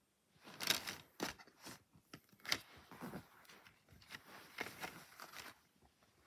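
Plastic multi-disc DVD case being handled, with crackling and clicking as its hinged disc tray is turned over. The sounds come in irregular bursts from about half a second in until shortly before the end.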